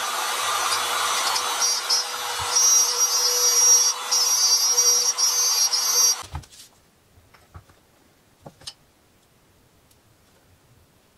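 Bosch router running and cutting a bow-tie recess into a mesquite slab, guided along an acrylic template, a steady whine over the cutting noise. It stops abruptly about six seconds in, followed by a few faint knocks.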